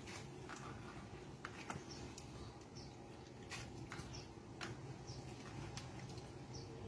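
Grated coconut being kneaded and squeezed by hand in water in a plastic basin: faint wet squishing with soft, irregular clicks and crackles, and a few faint high squeaks now and then.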